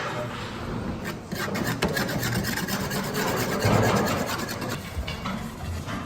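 Rapid, repeated rubbing and scraping strokes, loudest a little under four seconds in.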